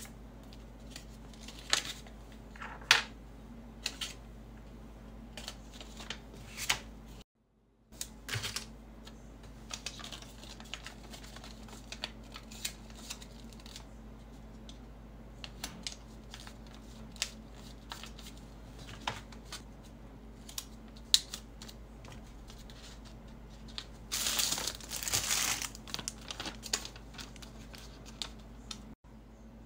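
Hands packing small candles and wax melts at a table: scattered light taps and clicks as items are picked up and set down, with a longer rustle of paper about 24 seconds in, over a steady low hum.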